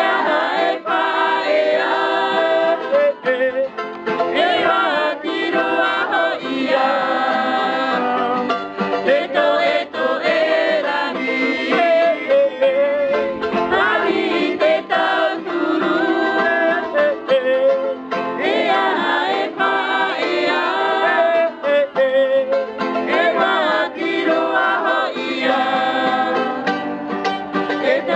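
Men singing together to a strummed acoustic guitar and a small teardrop-shaped plucked string instrument, a bright, banjo-like strumming, without a break.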